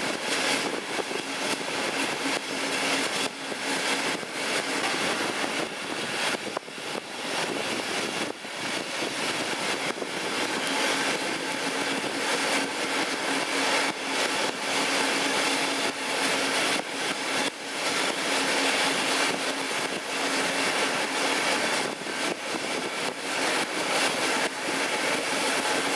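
DB class 218 diesel-hydraulic locomotive growling under load as it hauls a two-coach train up a steep grade, heard from a window of the train, with a steady engine drone under a dense rush of wind and wheel noise.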